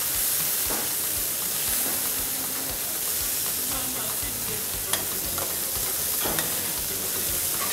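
Chicken strips sizzling steadily in oil on a hot flat-top griddle, with a spatula scraping and clicking on the griddle plate now and then as the meat is turned; one sharper click about five seconds in.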